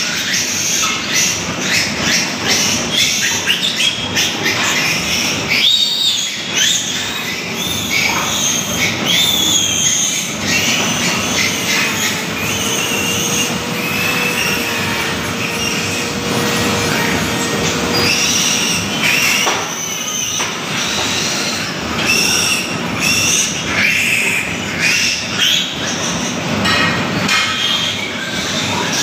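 Piglets squealing again and again, shrill and loud, as they are handled for teeth cutting. A steady hum runs for several seconds in the middle.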